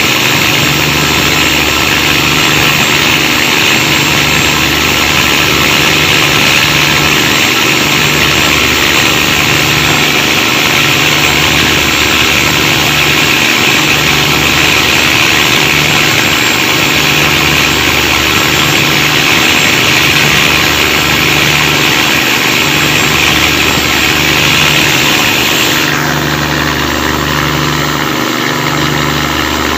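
Cummins KTA19 marine diesel engine running loud and steady, heard at the ship's exhaust stacks, with a slow regular throb in its low note. The noise goes with black smoke from the stack, which the owner counts as engine trouble. About 26 seconds in, the high hiss drops away suddenly and the sound gets a little quieter.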